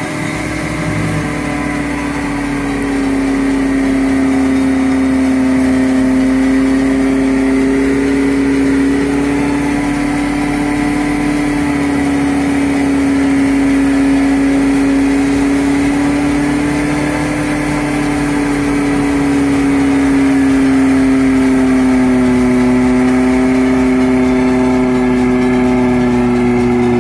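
Electric bumper winch on a Suzuki Katana 4x4 reeling in its taut line under load. It makes a steady whine that wavers slightly in pitch as it slowly hauls the vehicle forward.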